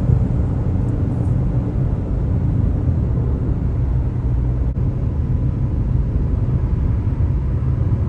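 A car driving at steady speed: a low, even rumble of road and engine noise.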